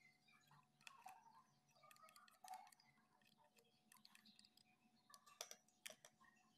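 Near silence with a few faint clicks and taps: a silicone spatula scraping chopped sambal off a food chopper's lid and against its plastic bowl.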